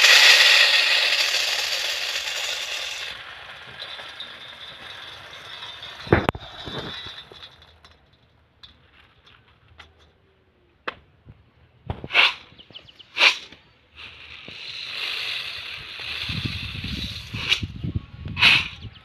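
Dried beans poured from a woven basket into a metal bowl, a loud rattling rush that fades over about three seconds. Scattered knocks and a few short sharp sounds follow.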